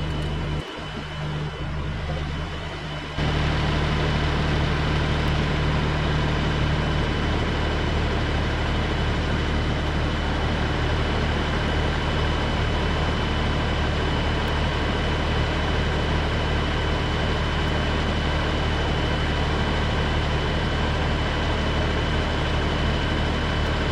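Tractor engine running steadily, getting suddenly louder about three seconds in and then holding at that level.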